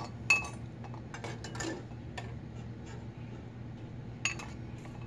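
Metal spoon clinking against a saucepan and a ceramic bowl as boiled eggs are scooped out of their water one at a time: a few separate clinks and knocks, a sharp one about a third of a second in and another near the end, over a low steady hum.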